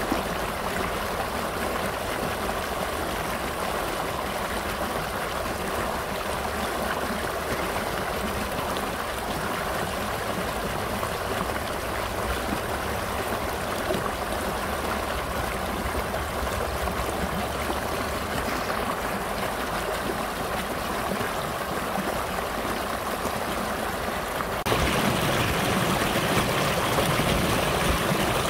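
Shallow rocky stream rushing and splashing over stones in a steady, unbroken flow. About 25 seconds in it cuts to a louder, fuller rush of water running over a shallow stony bed.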